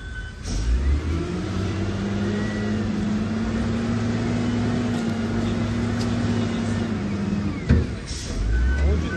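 Engine of heavy machinery running steadily, with a low thump near the start and a sharp knock about three-quarters of the way through.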